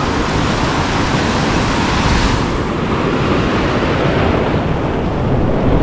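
Ocean surf washing over a shallow beach, foam rushing through the shallows, with wind rumbling on the microphone. The wash swells about two seconds in, then eases.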